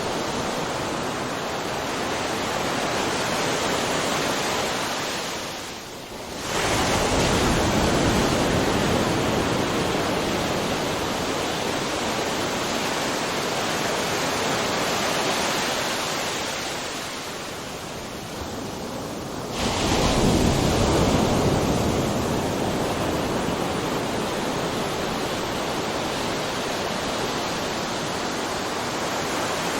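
Ocean surf: a steady rush of breaking waves. It dips briefly twice, about six and nineteen seconds in, and each time a sudden louder surge of a wave crashing follows.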